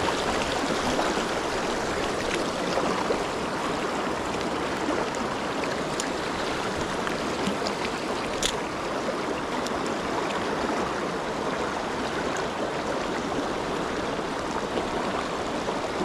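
Shallow, rocky mountain stream rushing over stones in a steady, even wash of water noise. There is one sharp click about eight seconds in.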